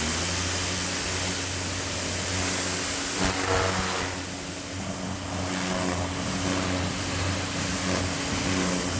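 Greenworks 1700 PSI electric pressure washer running, its motor and pump giving a steady hum under the hiss of the water jet spraying.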